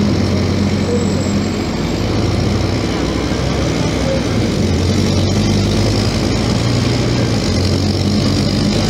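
Scania K270IB bus engine running under way, heard from inside the passenger cabin: a steady low drone whose pitch shifts up and down slightly a few times with the road noise.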